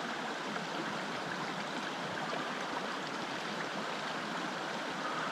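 Steady rush of a small mountain creek flowing over rocks.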